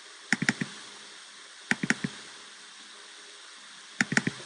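Computer mouse button double-clicking three times, each a quick cluster of sharp clicks, about half a second, two seconds and four seconds in, over a faint steady hiss.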